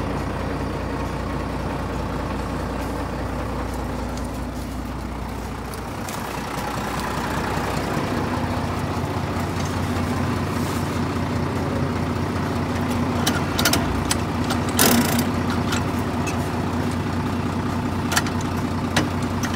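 A compact tractor's diesel engine running steadily; about a third of the way in its note shifts and it gets slightly louder. A few sharp clicks come in the second half as the gear lever is handled.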